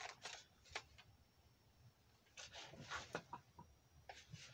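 Faint plastic clicks and knocks of an X-Shot foam-dart blaster being handled as its magazine is pushed in, a few at first and a cluster in the middle.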